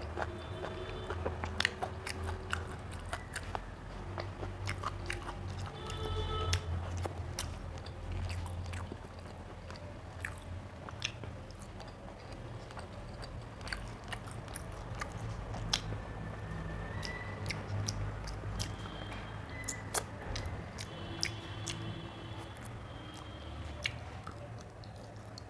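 Close-miked eating sounds: chewing and mouth smacking on rice and curry, with many scattered sharp clicks.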